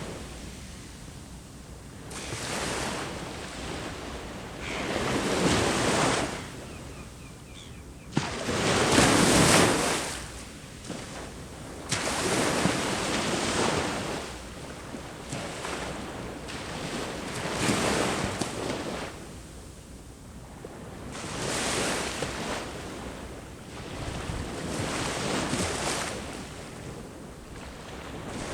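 Ocean waves breaking on the shore, each wash swelling and fading every few seconds, the largest about nine seconds in. Some wind noise on the microphone.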